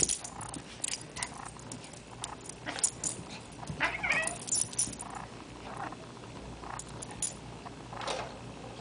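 A cat and a small dog scuffling on carpet: soft taps and rustles of paws and bodies, with the cat giving a short, annoyed cry about four seconds in and a few fainter ones elsewhere.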